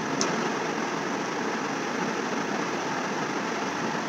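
Steady, even background hiss with no voice over it, and one short high click about a quarter of a second in.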